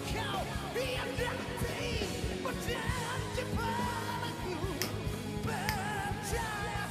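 A pop-rock band performance: a male lead singer holds long, wavering notes over the band's full instrumental backing.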